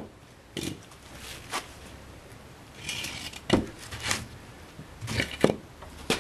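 Scattered knocks and clunks of metal parts and tools being handled, about half a dozen separate strikes, with a short scrape about three seconds in.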